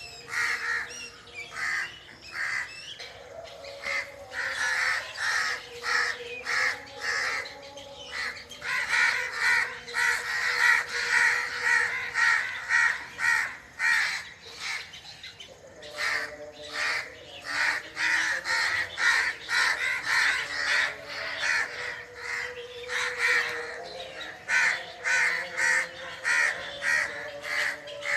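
A flock of birds calling at once: a dense, continuous chorus of short, rapidly repeated calls, with a brief lull about halfway.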